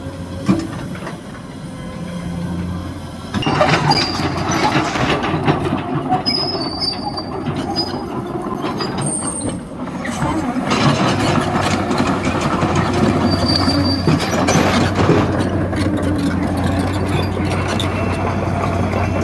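Excavator working: its diesel engine runs with a steady hum under dense metallic clatter and short high squeals. It gets louder about three seconds in.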